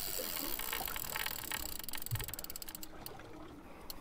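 Spinning fishing reel clicking rapidly and evenly as it works under a fish's pull, slowing to a few single clicks about three seconds in.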